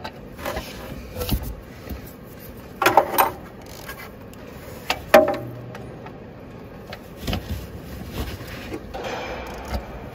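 Hand tools clinking and knocking against a truck engine's fan-belt tensioner as a socket and flexible bar are worked onto its 17 mm bolt. There is a cluster of louder metal knocks about three seconds in and one sharp knock about five seconds in.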